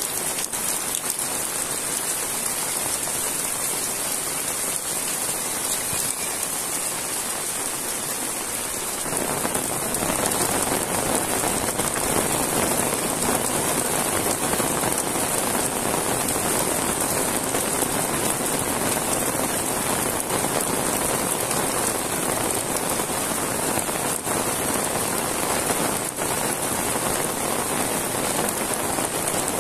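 Heavy rain falling steadily, a dense even hiss of countless drops on ground and roofs; about nine seconds in it grows louder and fuller.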